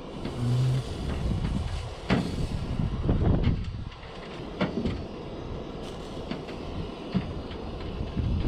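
Gas soldering iron at work on a zinc gutter seam: a rushing burner noise that rises and falls, with scrapes and clicks as the iron and tin solder stick are worked along the metal.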